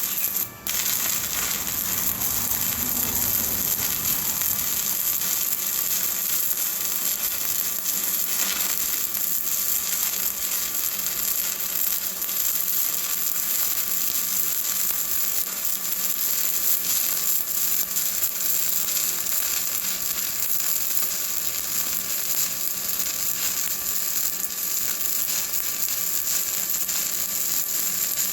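Stick welding with a 7018 electrode in the vertical position: the arc crackles steadily and densely, with one brief drop less than a second in.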